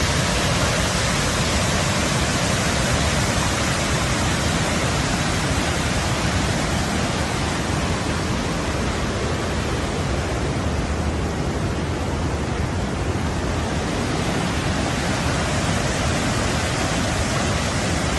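Swollen floodwater rushing, a steady loud noise that spreads evenly from deep rumble to hiss without a break.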